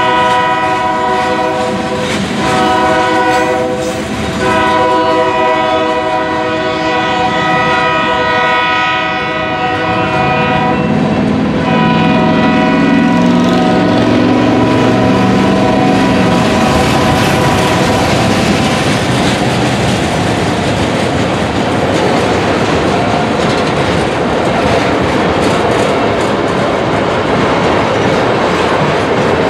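A freight train's horn sounds long, steady blasts with a couple of short breaks for about the first twelve seconds, over the rumble of freight cars rolling past. A lower droning tone comes in briefly in the middle. After that the passing cars' rolling rumble and wheel clickety-clack carry on steadily.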